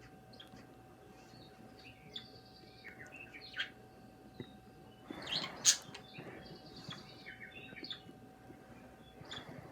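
Two pet birds chirping and twittering in many short calls, with one loud sharp click a little past halfway.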